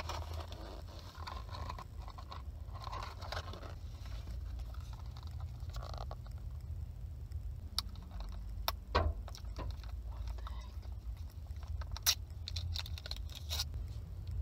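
Paper food wrapper rustling and being handled inside a car, with scattered sharp clicks and crackles over a steady low hum.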